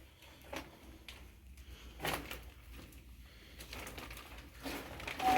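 Irregular footsteps crunching and scraping on a gritty, debris-strewn floor. A whistled note starts right at the end.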